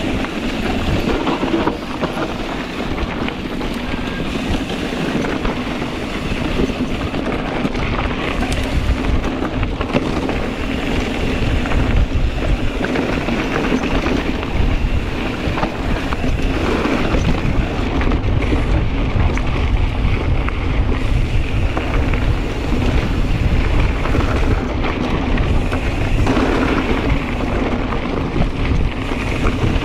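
Wind rumbling steadily on the microphone of a camera riding along on a Kona Process 134 full-suspension mountain bike as it rolls down a dirt trail, with tyre noise and scattered knocks and rattles from the bike.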